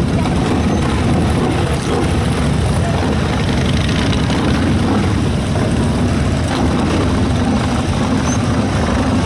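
Engines of a line of motorcycles and other vehicles passing in procession: a steady low drone that never lets up.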